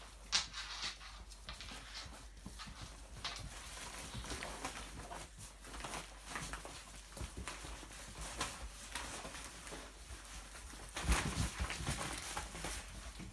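Seven-week-old puppies playing: paws and claws scrabbling and clicking on a laminate floor, with rustling from the nylon bag they tug at. About eleven seconds in, a louder flurry of thumps and scuffles as two puppies wrestle.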